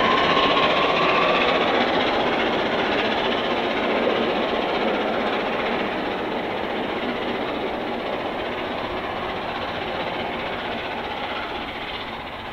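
Steam-hauled passenger train behind A1 Pacific 60163 Tornado running away down the line, a steady rushing rail noise that slowly fades and then cuts off suddenly near the end.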